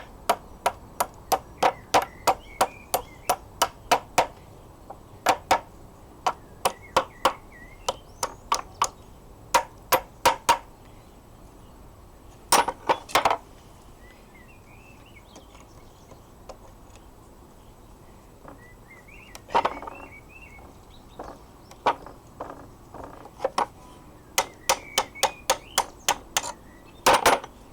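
Hammer striking metal to drive out the locking wedge of a wrought iron locksmith vise: runs of quick blows, about three a second, broken by short pauses.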